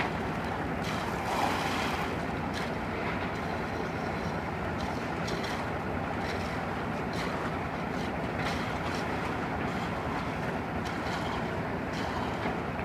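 Machinery running steadily, with scattered light clicks and knocks over it.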